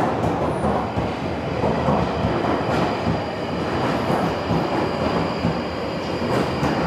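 London Underground tube train running into the platform, a steady loud rumble of wheels and carriages, with a high steady whine coming in after a couple of seconds.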